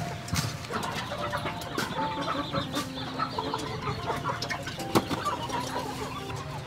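Chickens clucking, many short calls overlapping, with a sharp knock at the start and another about five seconds in.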